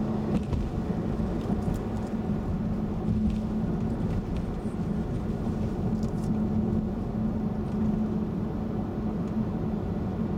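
Steady engine and road noise heard from inside a moving car's cabin, with a constant low drone.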